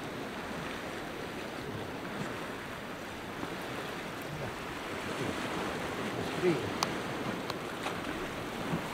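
Sea washing steadily against the rocks, with a few faint clicks about seven seconds in.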